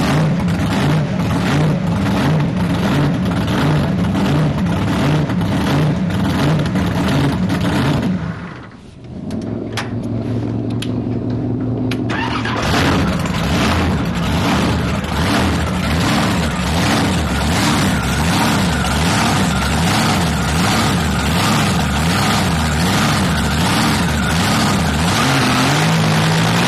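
Supercharged, alcohol-burning fuel-injected drag boat engine running hard at speed. About nine seconds in the power drops off to a lower, duller running note for about three seconds, then it comes back on hard and runs loud to the end.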